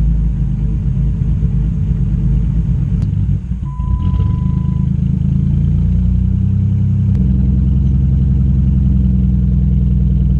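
Chrysler 300's 3.5 L V6 engine running steadily with a deep hum. About three and a half seconds in the sound dips briefly and a short electronic beep sounds for about a second.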